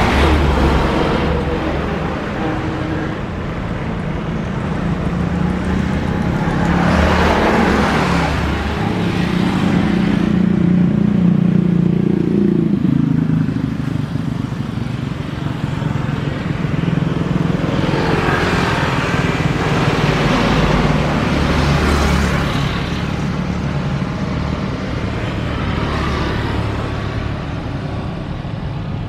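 Road traffic with a steady engine hum and vehicles passing by one after another, each rising and fading, most strongly about a quarter of the way in and again past the middle.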